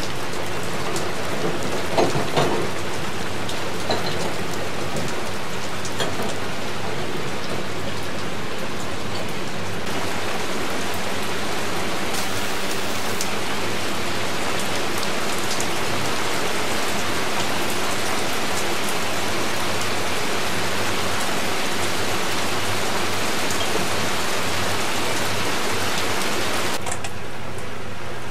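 Heavy rain falling steadily, with a few sharp taps in the first few seconds; the rain's hiss drops away abruptly near the end.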